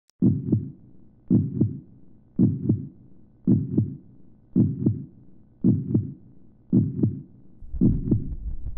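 A heartbeat-like sound: a low double thump, lub-dub, repeating about once a second, eight times. A low hum comes in near the end.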